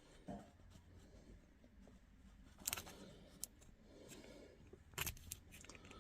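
Faint clicks and handling noise from a hand tool tightening the shift knob's factory screw: two short clusters of sharp clicks, a little under three seconds in and again about five seconds in, with a few single ticks between.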